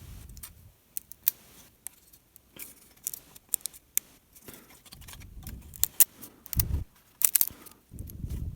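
Small sharp clicks and snaps of a plastic raft being pried and peeled away from a 3D print, with dull handling bumps in between.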